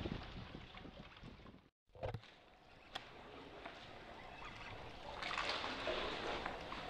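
Water lapping and sloshing around a kayak, with a brief dropout to silence about two seconds in and a couple of small knocks after it; the water noise grows louder near the end.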